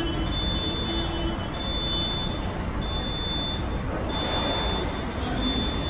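Pit-mounted hydraulic scissor lift lowering, with a steady low hum and a high-pitched warning beep repeating about once a second.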